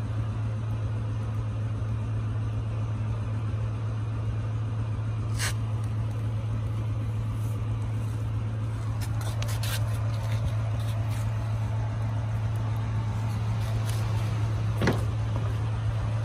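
A steady low hum, unbroken throughout, with a few short sharp clicks; the loudest click comes about fifteen seconds in.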